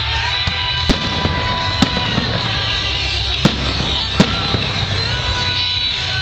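Fireworks going off: four sharp bangs, spaced about a second apart, over a steady background din.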